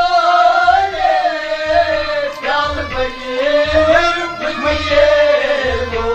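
Kashmiri Sufi devotional song: a wavering, ornamented melody line glides up and down over accompaniment, with a low drum beat about once a second.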